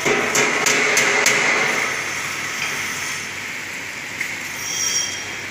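Horizontal metal-cutting band saw machine running, a steady high hiss and whine with a few sharp metallic clicks in the first second and a half, then settling to a quieter steady hiss.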